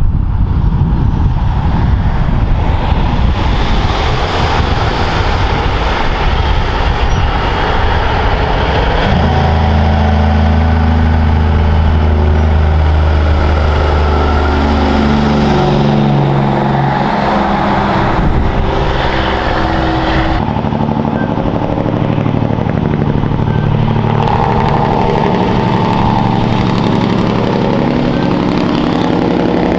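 Diesel engine of a long-nose heavy truck pulling trailers as it comes round the bend and passes. The engine note is strong and steady from about a third of the way in and shifts in pitch around halfway. Wind noise on the microphone is heard in the first seconds.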